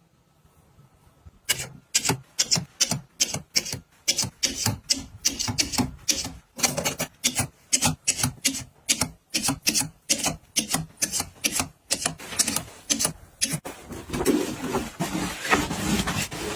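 Quick clicks, taps and rubbing of small objects being handled and set down, several a second, starting after about a second and a half of near silence and growing denser with more rubbing near the end.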